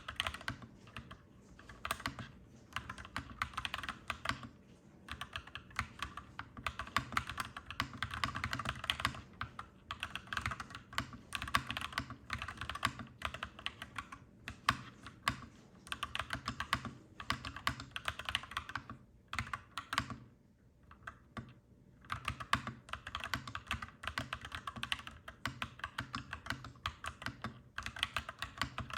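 Typing on a clacky mechanical keyboard: steady runs of fast keystrokes, with a short pause a little after the middle.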